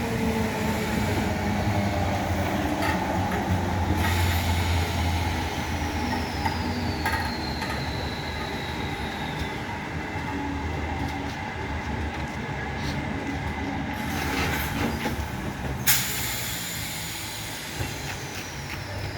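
Train running on the rails with a steady low rumble, and a high wheel squeal that slides down in pitch twice, a few seconds in and again near the end. A few sharp clicks from the rails, the loudest just before the second squeal.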